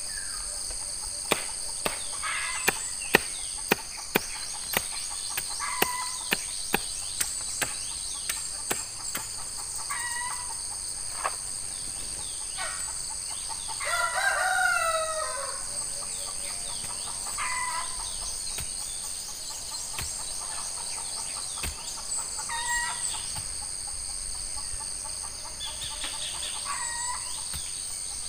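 A rooster crows once about halfway through, and chickens cluck in short calls now and then, over a steady high drone of insects. In the first nine seconds there is a run of sharp knocks, about one a second.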